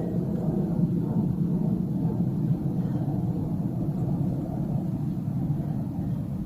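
A steady low rumble with no distinct knocks or changes.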